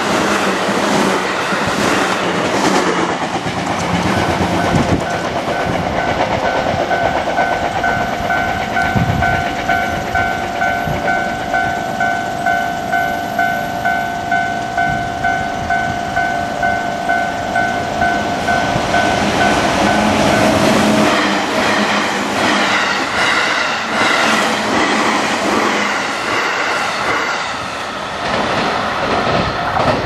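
A JR West 221 series electric train clattering past over the rail joints. A level-crossing warning bell follows with a rapid, even ringing, then fades about two-thirds of the way through as another train's rolling clatter builds.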